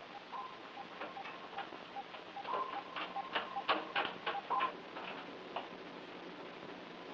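Electronic instrument sound effects of a 1960s TV submarine interior. A soft ticking pulse repeats about two and a half times a second, a steady beep tone switches on and off, and a flurry of sharp clicks comes around the middle. It all stops about five and a half seconds in, leaving hiss and a faint low hum.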